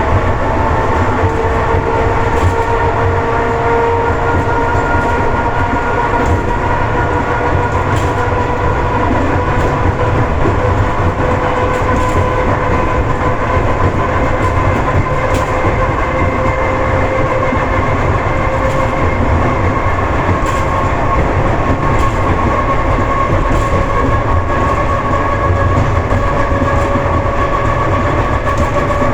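ED4M electric multiple unit heard from the vestibule: a steady whine that climbs slowly in pitch as the train picks up speed, over loud low running noise, with an occasional click of the wheels over rail joints.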